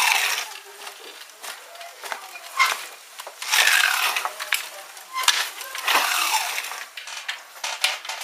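Wooden Flying-8 handloom being worked: the flying shuttle runs across the batten with a rushing, falling whizz about every two and a half to three seconds, and sharp wooden knocks come between as the batten beats up the weft.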